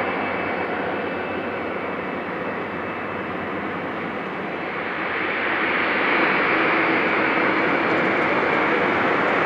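Jet airliner engines at takeoff power, a continuous rushing roar that eases a little and then swells again about five seconds in.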